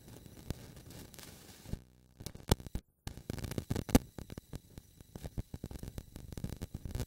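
Crackling, thumping noise on the camcorder's microphone, with the sound cutting out completely for a moment about three seconds in.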